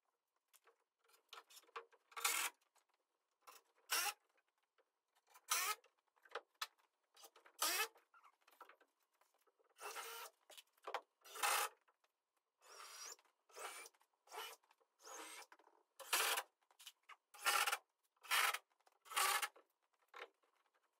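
A string of short scraping, rasping bursts, roughly one every second, from fitting a 2x4 board against the plywood roof edge and working it with a cordless impact driver.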